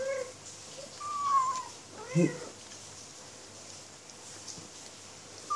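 Tabby kitten giving a few short mewing cries while it eats from its food bowl: a low one at the start, a loud high thin cry about a second in, another low one just after two seconds and a high one at the end. It is vocalising at its food, which the owner reads as the kitten being angry and shouting while eating.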